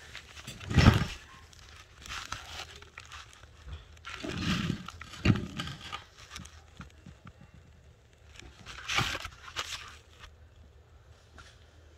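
Irregular rustling and scuffing handling noises in short bursts, loudest about a second in and again around nine seconds, with quieter stretches between.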